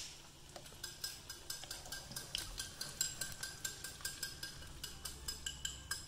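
Metal teaspoon clinking and scraping rapidly against a small ceramic bowl, several light clinks a second, as sauce is spooned out of the bowl onto salmon in a frying pan.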